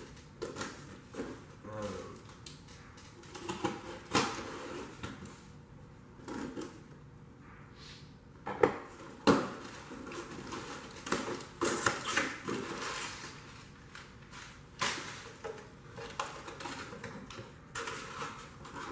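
A small parts box and its packaging being opened and handled by hand: irregular clicks, clacks and rustles, with two sharper knocks about halfway through.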